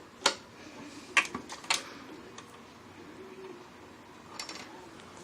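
A few separate sharp clicks and taps as parts of a computerized sewing machine are handled and set in place, with a faint brief hum a little past the middle.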